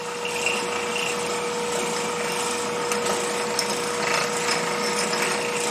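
Wood lathe running with a steady hum while a drill bit in a tailstock drill chuck bores into the spinning wood, fed in by turning the tailstock handwheel.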